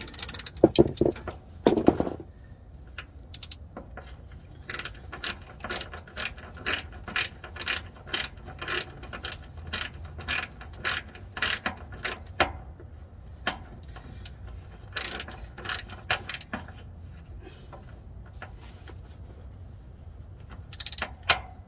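Ratchet wrench clicking in runs of strokes, about two clicks a second, with pauses between runs, as it tightens the bolts of a truck's crankcase filter (oil separator) housing. There are a few louder knocks in the first couple of seconds.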